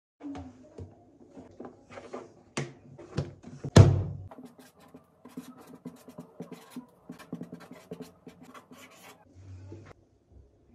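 Plastic food container handled with clicks and a loud knock about four seconds in, then a marker pen scratching in quick short strokes as a label is written on the container's plastic lid.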